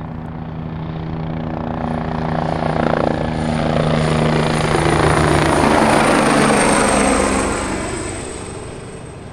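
Helicopter flying past: rotor chop and a high turbine whine grow louder to a peak about midway, then fade away, the whine dropping slightly in pitch as it goes by.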